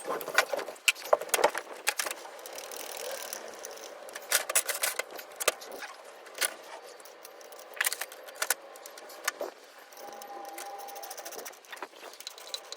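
Irregular metallic clinks, clicks and rattles of hand tools and the drive chain being handled while a motorcycle's rear wheel is set back and the chain adjusted.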